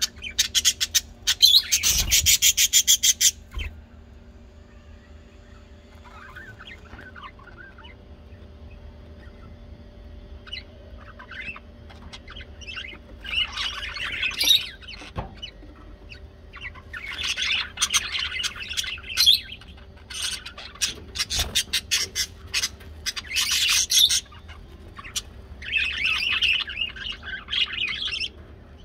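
Bird chattering in rapid bouts of a second or two, five times, over a faint steady hum.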